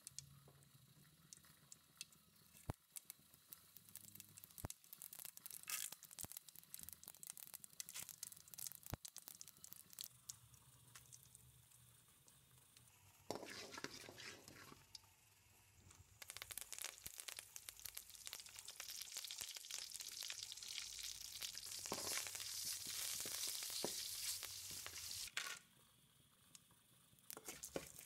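Mustard seeds crackling and popping in hot oil in a steel kadai, scattered sharp pops for about the first half. Then a steady, louder sizzle as the rest of the tempering (dried red chillies, dal, peanuts, curry leaves) fries and is stirred, stopping suddenly a few seconds before the end.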